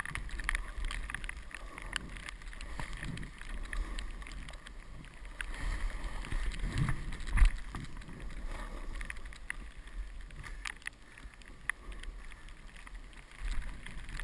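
Snow swishing under a rider sliding through soft snow, picked up by a helmet camera, with wind on the microphone. Scattered low thumps from bumps in the run, the loudest about seven and a half seconds in.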